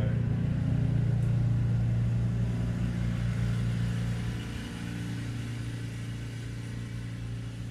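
Steady low mechanical hum, stepping down a little in level about halfway through.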